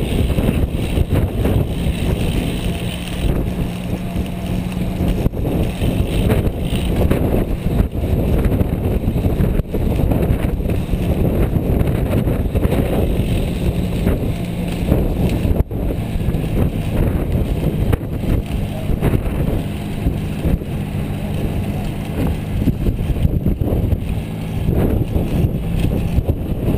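Wind buffeting the microphone of a camera riding on a road bike in a moving pack: a loud, steady low rumble.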